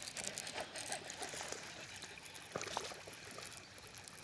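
Water splashing and trickling in irregular small bursts, with a few sharper splashes or knocks near the start and about two and a half seconds in.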